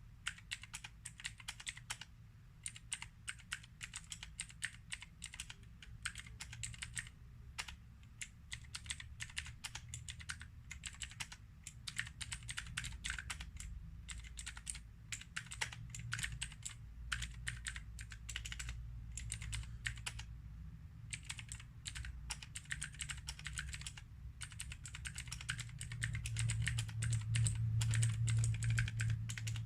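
Fast typing on an AJAZZ AK33 mechanical keyboard with Zorro Blue clicky switches: dense runs of sharp key clicks with short pauses between bursts. A low hum runs underneath and swells near the end.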